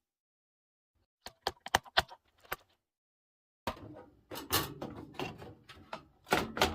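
Computer parts being handled and fitted into a PC case. First a quick run of about eight sharp clicks, then after a short pause a longer spell of clattering and knocking of hardware.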